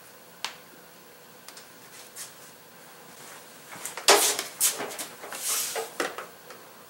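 Hands handling tools and a plastic handheld scan tool over an engine bay: a single sharp click about half a second in, then from about four seconds a run of clacks, taps and rustling, the loudest clack first.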